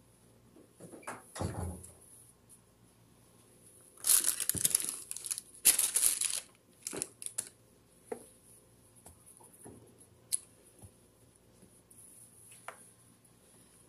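Thin plastic packaging crinkling and rustling as it is handled, about two and a half seconds of loud rustle starting about four seconds in. Soft handling knocks and a click come before and after it.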